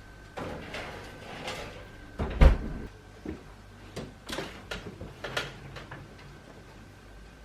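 Kitchen handling sounds: a second or two of rustling, then a door shut with a solid thud, followed by several light knocks and clicks.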